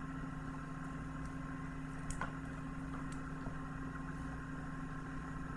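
Room tone: a steady electrical hum, with a couple of faint clicks about two and three seconds in.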